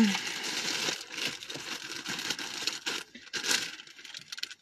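Packaging being torn open by hand, crinkling and rustling, with a louder rip about three and a half seconds in.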